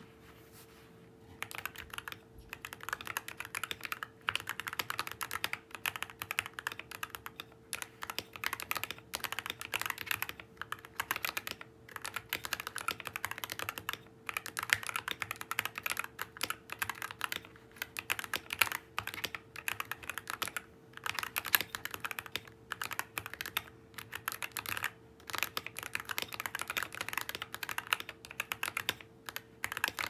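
Typing on a GMMK Pro mechanical keyboard fitted with lubed Gateron Black Ink V2 linear switches, an aluminium plate and case, plate and PE foam: a fast, continuous run of keystrokes broken by short pauses, starting about a second and a half in.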